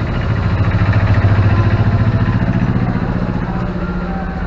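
A small vehicle engine running close by, a low, fast throb that swells over the first second or two and fades away about three and a half seconds in.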